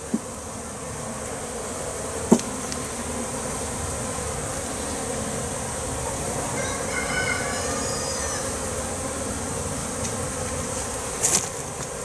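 Steady buzzing drone of many honeybees from an opened nuc hive, with a sharp knock about two seconds in and a short clatter of knocks near the end.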